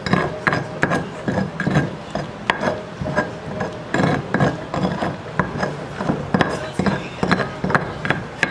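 Stone pestle grinding and scraping roasted tomatoes and chiles in a stone molcajete: a steady run of gritty strokes, about two to three a second.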